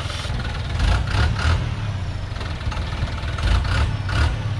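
Heavily loaded Dongfeng truck's diesel engine running at low revs as the truck creeps forward, with a few short noisy bursts about a second in and again near the end.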